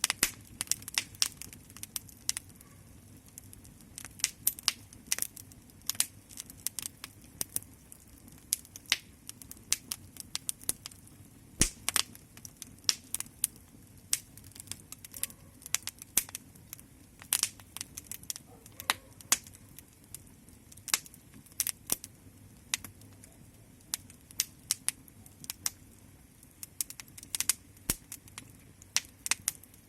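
Wood fire crackling, with many irregular sharp pops and snaps over a faint low background.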